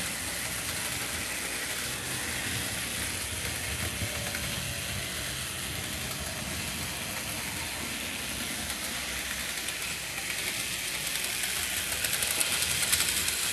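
Märklin HO Class 23 model steam locomotive running along metal track: a steady mechanical whirr of its electric motor and gears, with wheel noise on the rails. It grows louder over the last few seconds as the locomotive comes close.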